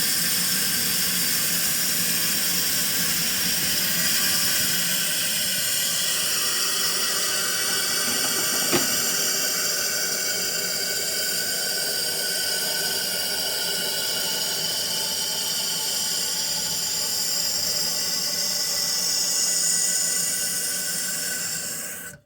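Toilet fill valve refilling the tank, a steady hiss of water rushing through the valve with faint whistling tones. There is one click about nine seconds in, and the sound cuts off suddenly at the end.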